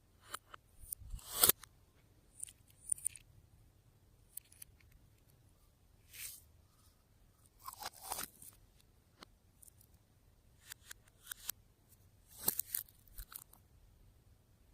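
Slime being worked by hand: irregular short crackles and clicks in clusters a second or two apart, with quiet gaps between them and the loudest cluster about a second and a half in.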